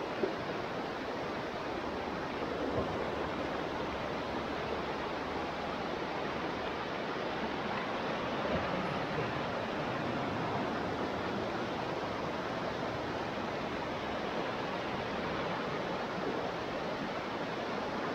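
Brown floodwater of an overflowing stream rushing under and over a small bridge and across the road: a steady, full rushing of fast, turbulent water.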